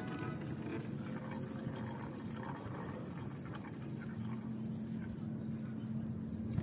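Fluid pouring steadily out of a tipped plastic container into a drain pan, a continuous splashing trickle of liquid into liquid.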